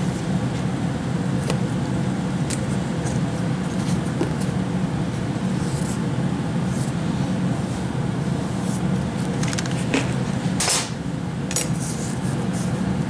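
A steady mechanical hum, like a machine running, with a few short sharp clicks and taps over it.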